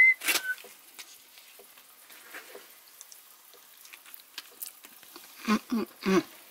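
A person eating a soft corn-tortilla beef taco: faint chewing and handling ticks, with three short muffled mouth sounds about five and a half seconds in. A brief high whistle-like chirp and a sharp click come right at the start.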